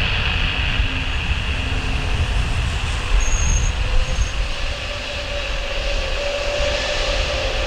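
Airbus A320neo's CFM LEAP-1A turbofans whining steadily at low thrust as the jet rolls along the runway, over a low rumble. Near the end the engine tone starts to rise as thrust comes up for the takeoff run.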